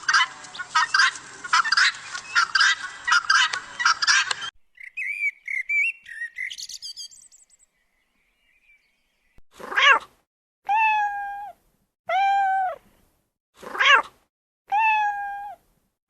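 Animal sounds: a dense burst of chirping and twittering, then after a pause a cat meowing several times, short high-pitched calls that rise and fall.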